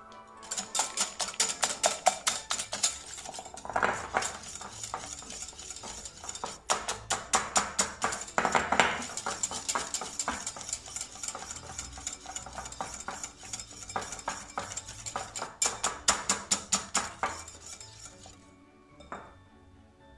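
Stainless wire whisk beating egg yolks in a glass bowl, its wires clicking rapidly against the glass. The whisking stops near the end.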